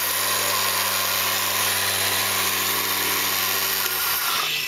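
Electric countertop blender running at speed, blending a mango shake; the motor is switched off about four seconds in and winds down.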